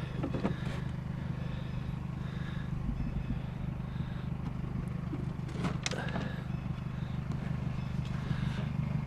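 Vehicle engine idling with a steady low rumble, and a brief light clatter about six seconds in.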